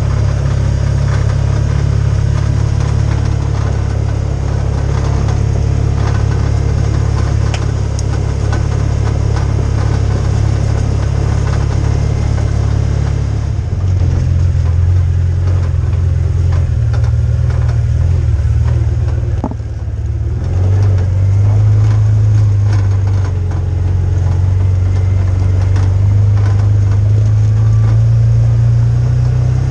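Side-by-side UTV's engine running as it drives, a steady low drone. About halfway through the engine note changes with the throttle, and it briefly drops off and picks up again a few seconds later.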